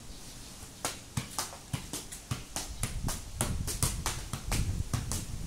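Football being juggled with the feet: a steady run of short thuds as the ball is kicked up again and again, about three touches a second, starting about a second in.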